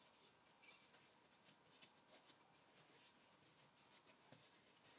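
Near silence, with faint rustling and light scattered clicks of gloved hands turning over a small brass hammer with a wooden handle.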